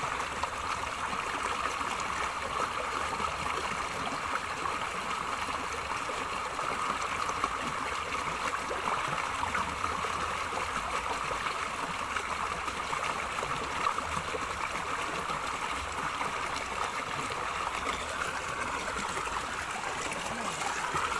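A small river's water running and gurgling steadily.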